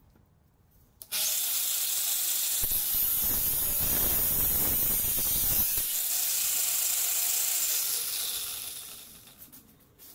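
An angle grinder is switched on about a second in and runs at speed. For about three seconds its abrasive cut-off disc cuts through a square steel tube, adding a heavier grinding noise. Near the end the motor is switched off and winds down.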